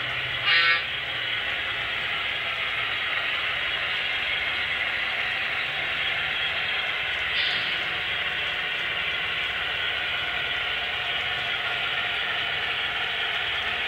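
HO-scale Broadway Limited Centipede diesel model locomotives running with a long train, a steady running noise from their onboard sound and the cars on the track. A short horn blast sounds about half a second in.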